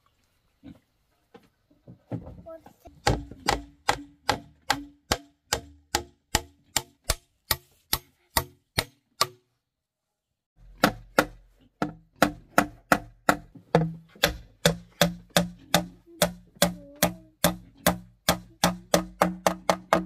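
Hammer blows, struck steadily about three times a second, in two long runs with a pause of about a second between them.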